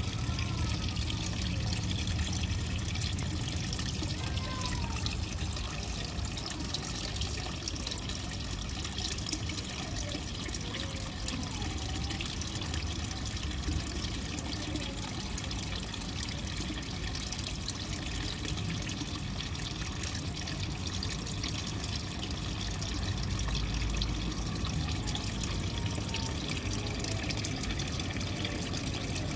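Steady trickle of running water into a garden pond, an even splashing hiss that never stops.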